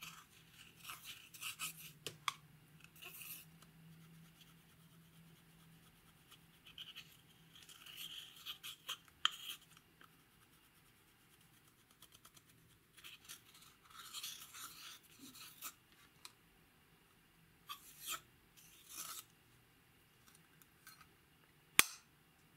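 A plastic spatula scraping pressed eyeshadow powder out of the pans of a compact palette, in short scratchy bursts with pauses between them. One sharp tap comes near the end.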